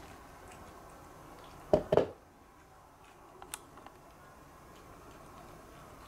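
Two dull knocks about a quarter of a second apart, less than two seconds in, then a few faint clicks over quiet indoor room tone.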